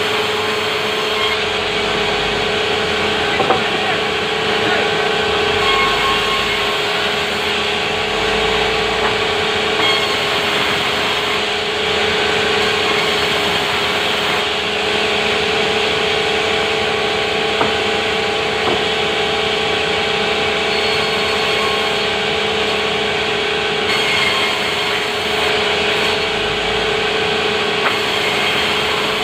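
Sawmill saw running steadily while cutting timber into boards: a continuous saw whine with a constant hum.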